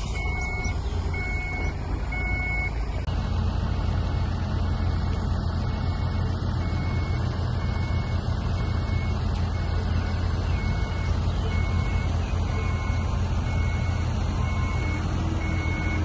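Heavy diesel site machinery running with a deep, steady rumble. A reversing alarm beeps at a steady pace, a little under a second apart, in the first three seconds and again from about twelve seconds in.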